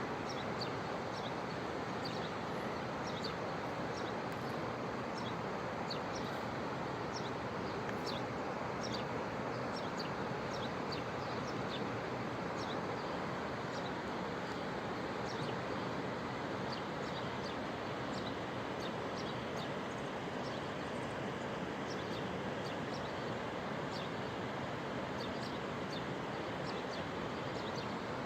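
Steady rushing of floodwater flowing through a wadi, with small birds chirping over it in quick, repeated short calls.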